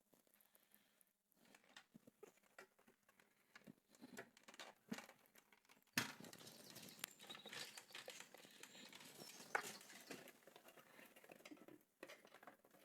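Faint handling sounds while an amplifier is taken apart: scattered light clicks and taps, then a sharper click about six seconds in followed by scratchy scraping and small clicks.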